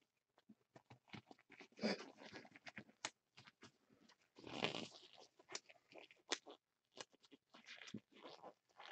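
Faint rustling, crinkling and scattered clicks of plastic card-protection supplies being handled, with a longer crinkle about four and a half seconds in.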